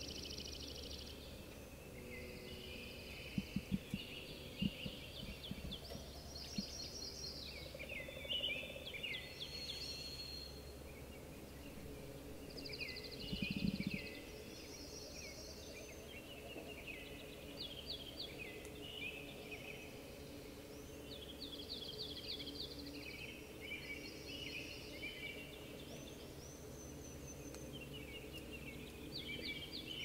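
Spring chorus of several songbirds singing and calling over one another: high chirps, trills and quick runs of notes, with a steady low hum underneath. A few soft low thumps come about three to five seconds in, and a short low rumble near the middle.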